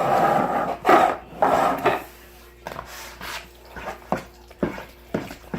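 A spoon stirring thick chicken pot pie filling in a bowl: three loud scraping strokes against the bowl, then a handful of separate sharp knocks of the spoon on the bowl.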